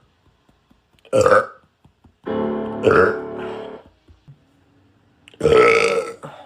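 A man burping loudly three times: about a second in, around three seconds in, and a longer one near the end. The middle burp sits over a short held musical chord lasting under two seconds.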